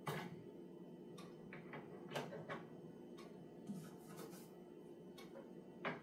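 Faint, scattered clicks and taps of small plastic bird feeder parts being handled and set down on a table, about nine in all.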